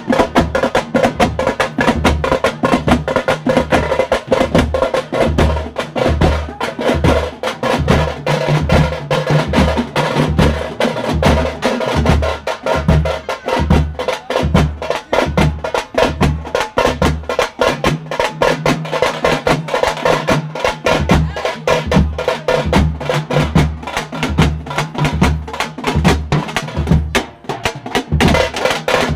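Several round frame drums beaten together in a fast, driving rhythm: dense sharp strokes over a steady deep beat.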